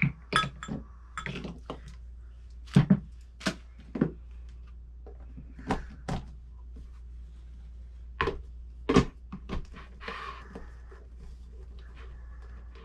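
A series of separate knocks and clunks of a glass blender jar being handled: the lid pressed on and the jar set down onto its motor base. The loudest knocks come about three seconds in and about nine seconds in.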